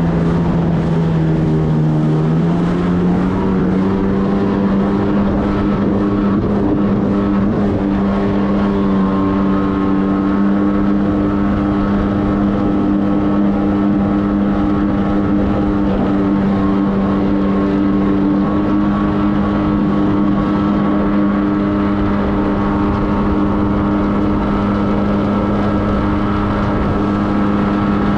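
Jet ski engine running at a steady cruise. Its pitch rises slightly about two seconds in, then holds.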